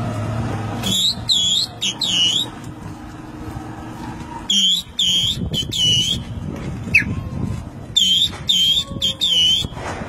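A man whistling through his fingers, shaping the notes with his tongue: three sets of three sharp high notes, each note dipping and swinging back up in pitch, about three seconds apart, with a single short rising chirp between the second and third sets.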